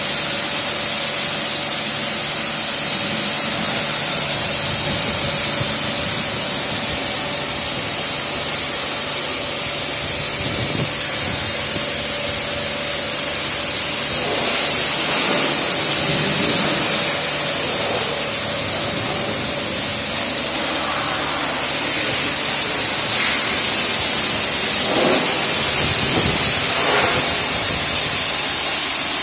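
High-pressure car-wash pump running with its water jet spraying: a steady loud hiss over a low, even motor hum.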